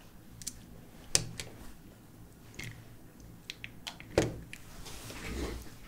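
Light handling noises: a few small clicks and taps as a Lightning charging cable is plugged into an iPhone and the phone is moved about on a rubber work mat, with a soft knock about four seconds in, over a faint steady low hum.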